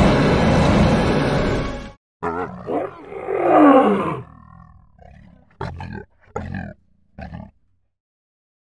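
A lion roaring loudly, breaking off abruptly about two seconds in. A shorter, falling growl follows, then a few brief bursts near the end.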